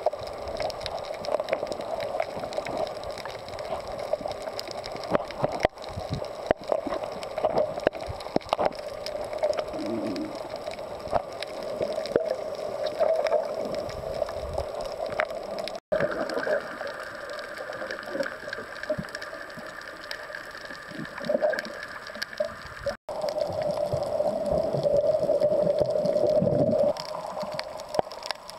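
Muffled underwater sound picked up by a submerged camera: water gurgling and sloshing, with a steady hum running through it. The sound drops out for an instant twice, and between the two drop-outs a higher steady tone joins the hum.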